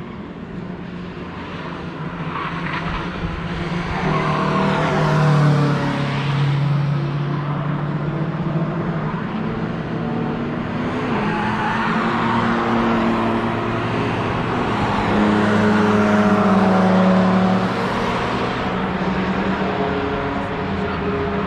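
Several cars driving past on a race track one after another. Their engines rev and shift, rising and falling in pitch as they come by, with the loudest passes about five seconds in and again around sixteen seconds.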